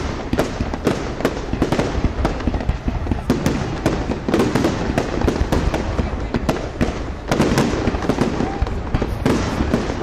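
Fireworks display at its climax: aerial shells bursting in rapid, overlapping succession, a dense string of bangs and crackles over a constant low rumble, with a few short whistling tones near the end.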